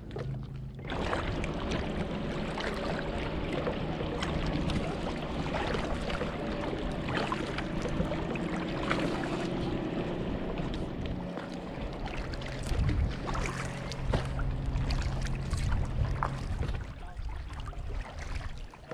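Kayak paddling on calm water: paddle blades dipping and splashing, with drips and water lapping along the hull. It starts about a second in.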